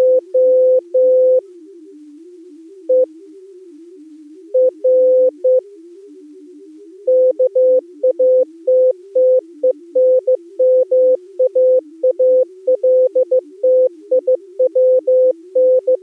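Amateur-radio digital-mode audio: a Contestia data signal, a quieter tone hopping rapidly in pitch low in the range, under a louder steady tone that keys on and off in short and long pulses. The pulses are sparse at first and come thick and fast in the second half.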